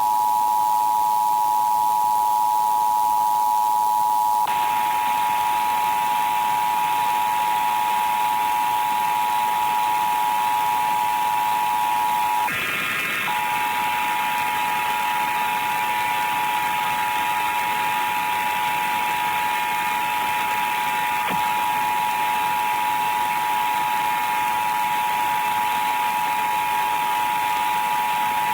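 Emergency Alert System two-tone attention signal, sounding steadily under heavy hiss and the muffled, warbling distortion of repeated low-bitrate re-encoding. About four seconds in, a buzzy stack of extra higher tones joins it. The attention tone drops out for a moment near the middle.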